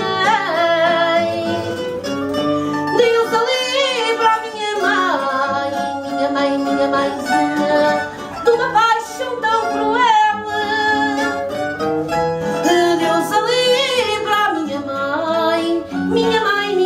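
Live fado: a Portuguese guitar and a fado viola (classical guitar) play while a woman sings long, wavering notes.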